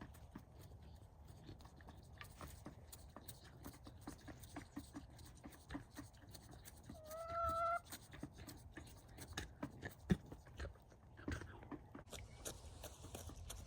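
Faint scattered clicking and shuffling, with one short call from a farm animal about seven seconds in, held at a steady, slightly rising pitch for under a second.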